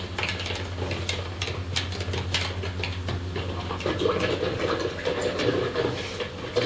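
Kitchen dishes and utensils clinking and knocking over a steady low hum.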